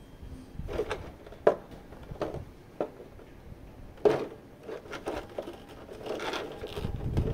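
Hands handling a collectible action figure and its packaging: a few sharp light clicks and taps amid soft rustling, with the rustling growing louder near the end.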